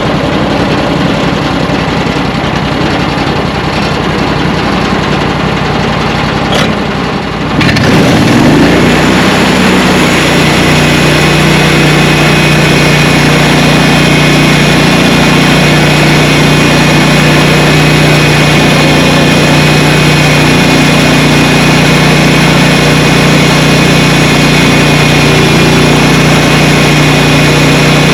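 Sawmill engine running steadily, then throttled up about seven and a half seconds in, its pitch rising and settling into a louder, steady higher-speed run. A single click comes just before the change.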